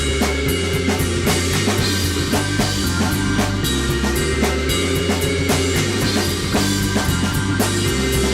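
Music with a drum kit playing a steady beat over a bass line that steps from note to note.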